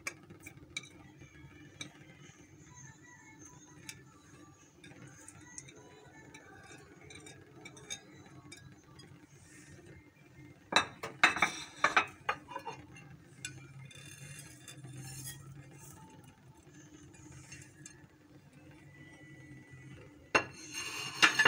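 Glass dishes clinking and knocking against each other in two short clusters, about eleven seconds in and again near the end, as chopped vegetables and spices are tipped and scraped from plates into a glass bowl of raw eggs.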